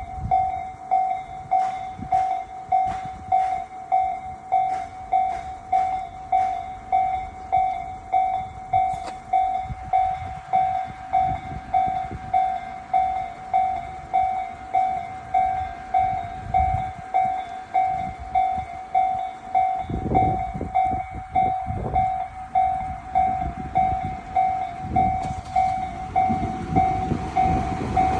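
Japanese level-crossing warning bell dinging in a steady, regular rhythm while trains pass, with clacking wheels early on and a heavier rumble swelling about two-thirds of the way in.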